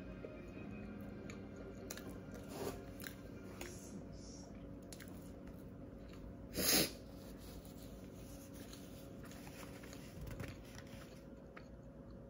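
Quiet chewing and biting of food, with a few small clicks and one short, louder sound with a bending pitch about six and a half seconds in.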